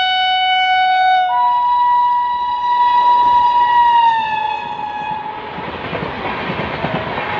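WAP-7 electric locomotive's horn sounding two long overlapping blasts as it approaches at speed; the second note drops in pitch about four seconds in as the locomotive passes. It is followed by the rumble and clickety-clack of the express's coaches rolling past.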